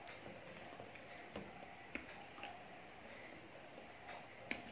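Faint eating sounds: fingers mixing rice and curry on a steel thali, with scattered soft clicks and a sharper click near the end.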